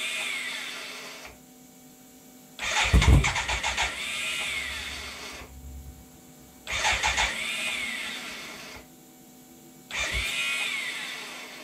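BMW K100's electric starter cranking the four-cylinder engine in four separate bursts of about two to three seconds each, the first already under way. Each burst starts with rapid pulses and then winds down. The engine does not catch, and the owners suspect something is wrong with the starter motor.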